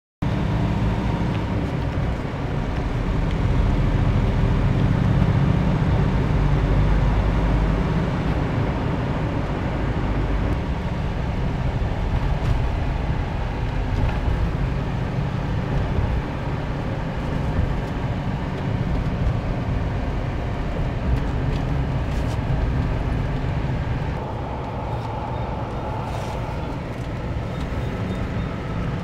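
Steady engine and road noise of a moving road vehicle, heard from on board, dominated by a low rumble, a little quieter near the end.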